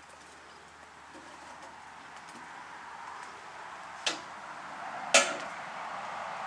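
Food sizzling over a wood fire, the hiss growing louder as a cloud of steam rises, with two sharp clanks of a metal utensil about four and five seconds in.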